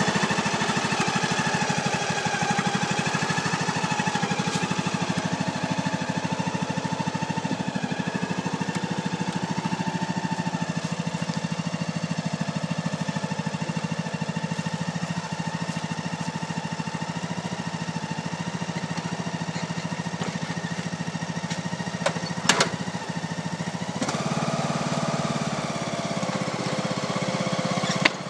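Lawn tractor engine idling in the cold with a little rough idle. The engine note shifts slightly about three-quarters of the way through, and a couple of sharp clicks come near the end.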